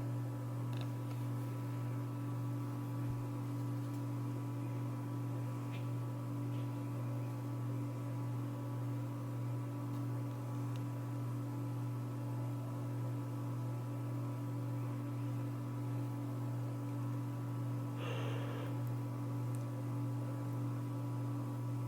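Emerson ceiling fan's electric motor running with a steady hum, the level wobbling slightly and regularly. A brief soft noise about eighteen seconds in.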